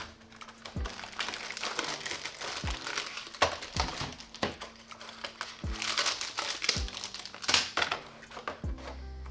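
Crinkling and rustling of handled material such as plastic packaging, over background music with a regular thudding beat.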